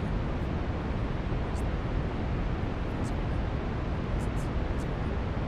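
Steady brown noise: an even, deep rushing hiss, heaviest in the low end and fading toward the top, with faint brief high hisses a few times.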